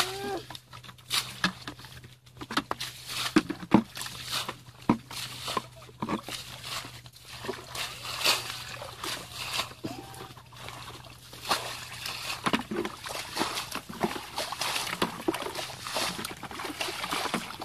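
Muddy ditch water sloshing and splashing irregularly as plastic buckets are scooped through it and emptied out, with trickles of water pouring back.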